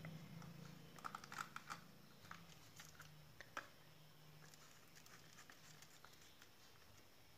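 Faint small clicks and scratches of a small screwdriver turning a terminal screw on a switchboard while a wire is pushed into the terminal, mostly in the first half; the rest is near silence.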